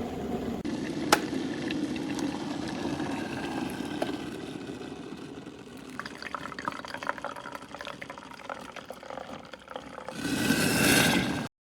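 Water boiling in a stainless steel electric kettle: a steady bubbling rumble that quietens about halfway into scattered crackles and ticks. Near the end a louder rush of noise swells for about a second and cuts off suddenly.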